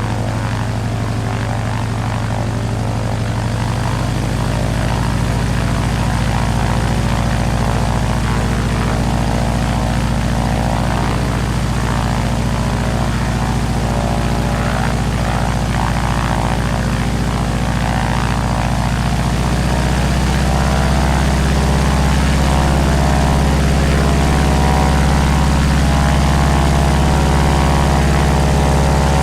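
Helicopter running steadily with a continuous engine and rotor drone. Its pitch shifts about four seconds in and again around twenty seconds in, getting slightly louder near the end.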